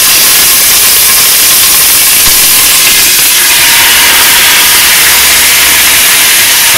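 Loud, steady sizzling hiss of raw meat pieces and their watery juices hitting very hot oil in a stainless steel pot, throwing up steam as the water boils off.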